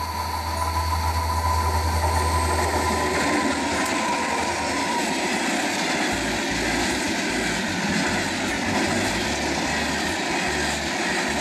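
A Union Pacific diesel freight locomotive passes with a low engine drone, which gives way about three seconds in to a string of tank cars rolling by close, their wheels rumbling steadily on the rails.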